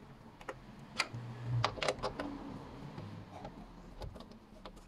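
Socket wrench undoing a 10 mm bolt from a car's steel fender flange: irregular sharp metal clicks and taps as the wrench is worked and the bolt turns.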